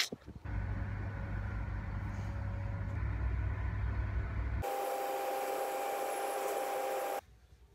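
Passenger train heard from inside the carriage while moving: a steady low rumble, then after a cut a louder hiss with several steady whining tones as it runs along, cutting off suddenly near the end.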